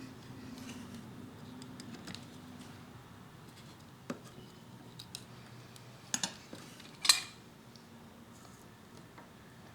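Scattered clicks and clinks of small hard objects being handled on a workbench, with a sharp clatter about seven seconds in as the loudest.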